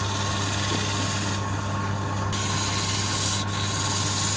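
Wood lathe running with a steady motor hum while a tool or abrasive rubs against the spinning wood, making a hiss. The hiss drops away for about a second, about a third of the way in, then comes back.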